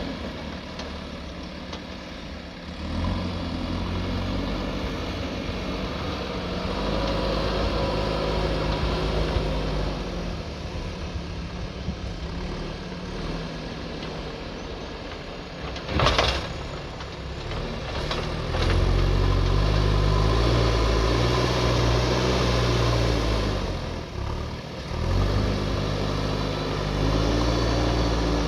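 Backhoe loader's diesel engine working, its revs rising and falling with the load, loudest for several seconds past the middle. A single sharp knock a little past halfway.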